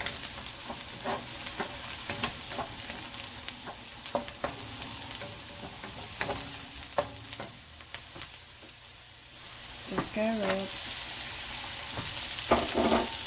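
Onion and garlic sizzling in oil in a metal wok, stirred with a wooden spatula that knocks and scrapes against the pan. Near the end carrot sticks are tipped in and the sizzle grows louder.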